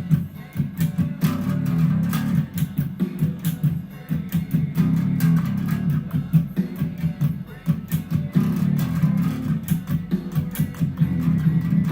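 Electric bass guitar played through a song, a continuous run of plucked low notes with sharp attacks.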